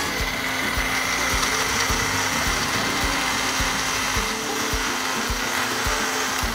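Countertop blender running steadily, puréeing chopped onion, tomato and green chillies into a wet paste, its motor giving an even whirring hum.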